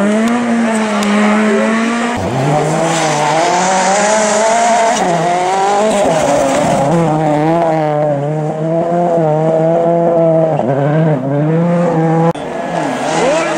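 Rally car engines revving hard through corners on a snowy road, the pitch climbing and dropping with throttle and gear changes. The sound switches abruptly twice, about two seconds in and near the end, as one car gives way to the next.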